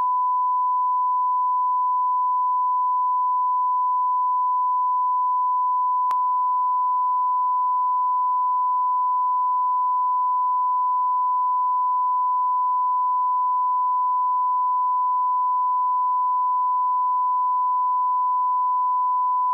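A steady 1 kHz line-up test tone, the reference tone that accompanies colour bars, held at one constant pitch and level and stopping abruptly at the end. There is a faint click about six seconds in.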